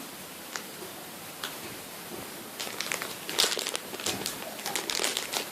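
Crinkling and rustling as a squishy toy and its plastic wrapping are handled, in scattered short bursts that are loudest a little past the middle.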